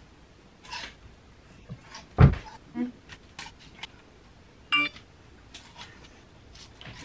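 Clothes and hangers being pushed along a closet rail: scattered clicks and knocks, with one heavy thump about two seconds in and a brief squeak near the five-second mark.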